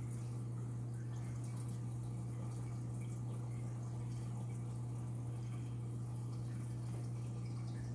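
Aquarium equipment running: a steady low hum with faint trickling and dripping water.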